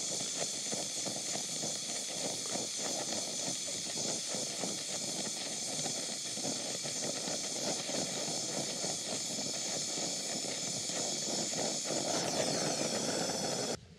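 Oxy-acetylene welding torch flame hissing steadily while welding a steel tube, with faint irregular ticks as the filler rod is dipped into the weld pool. The hiss stops abruptly near the end.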